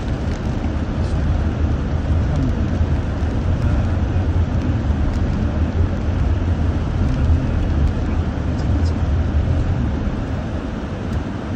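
Steady low rumble of a car driving on a wet road in the rain, heard from inside the cabin.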